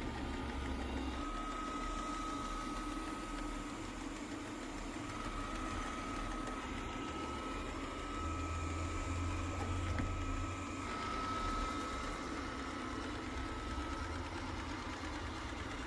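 Xiaomi Robot Vacuum S10 running with a steady motor whine as it drives back to its charging dock.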